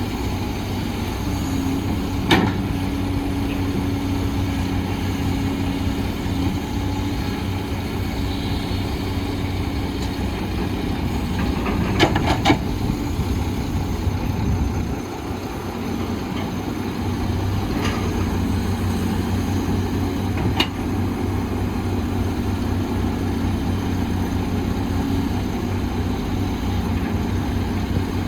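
Heavy diesel construction machinery running steadily, with a constant low engine drone. A few sharp knocks cut through it: one early, a quick cluster of three near the middle, and two more later.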